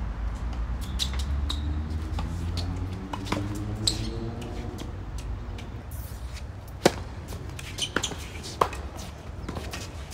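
Tennis ball bounced a couple of times on a hard court, then struck with a racket on a serve about seven seconds in, followed by two quicker racket hits in the rally. A low rumble and a rising drone fill the first few seconds.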